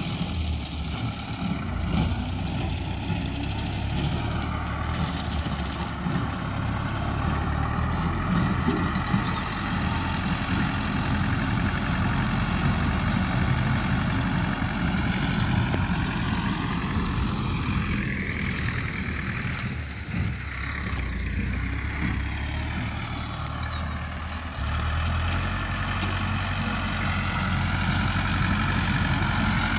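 Farm tractor's engine running steadily while it mows the field. Its pitch sags and recovers about two-thirds of the way through, and it gets a little louder near the end.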